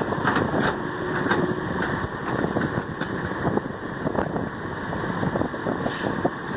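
John Deere 595D excavator's diesel engine running steadily while the machine works, with a few light knocks.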